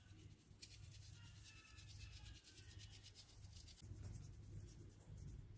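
Faint, fine patter of granulated sugar sprinkled onto a nonstick frying pan, the grains ticking on the pan's surface for a few seconds.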